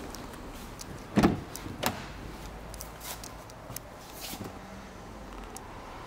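Ford Focus car door being opened: a loud clunk from the latch about a second in, a second knock just after, then a few light clicks and taps.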